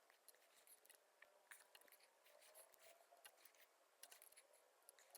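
Near silence with faint, scattered ticks and rustles of a needle and waxed thread being pulled through a leather lever cover during hand-stitching.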